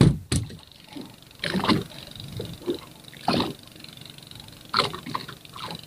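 Water slapping against the hull of a small fibreglass boat drifting at sea, in several short separate splashes a second or more apart.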